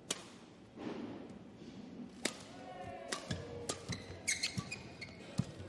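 Badminton rally: rackets striking the shuttlecock with sharp pops, several times, and shoes squeaking on the court, most around the middle and near the end.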